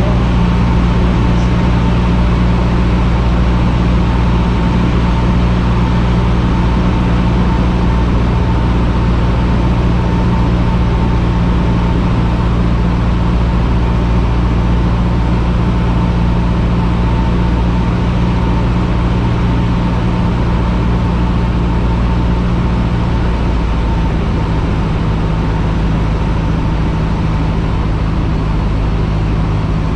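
Cessna 150's Continental O-200 four-cylinder engine and propeller droning steadily in flight. About 23 seconds in, the engine note drops slightly lower and stays there.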